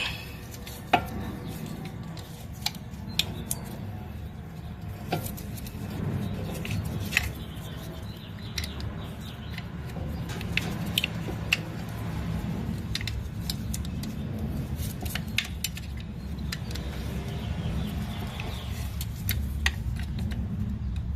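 Hand tools clinking and clicking against metal brake parts while bolts are worked loose at the rear brake caliper: scattered, irregular sharp metallic clicks over a steady low hum.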